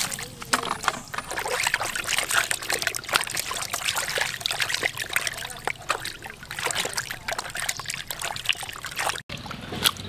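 Hands scrubbing a raw cow tongue and liver in a plastic basin of water: irregular splashing and sloshing with many small wet slaps. It breaks off abruptly near the end.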